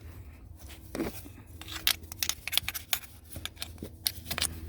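A small brush scrubbing crumbs of worn rubber out of the steel gear of a steering-column flexible coupling: quick, irregular scratchy strokes.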